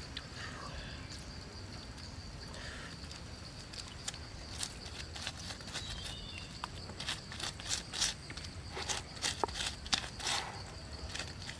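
Irregular crackles and sharp ticks from a whole chicken spit-roasting over wood embers as it is basted with sauce, coming thicker in the second half, over a steady high hum in the background.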